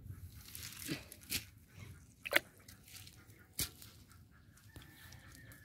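Rustling and a few sharp clicks as a fishing net is handled on the ground, with a chicken clucking in the background.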